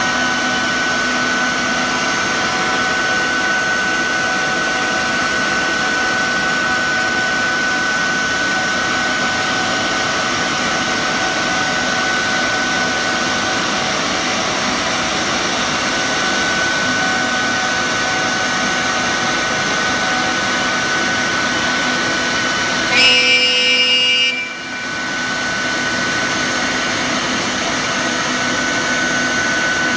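CNC router spindle cutting a SIP panel, with its dust extraction running: a steady machine whine with a high tone held throughout. About three-quarters of the way through it briefly gets louder with extra high-pitched tones, then drops for about a second before settling back.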